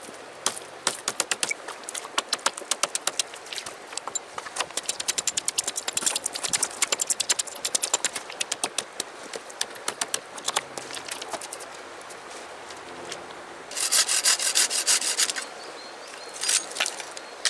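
Hatchet chopping and shaving a dead birch pole in quick short strokes, about four to five a second, the blade biting and scraping the dry wood. A faster, louder flurry of strokes comes about fourteen seconds in.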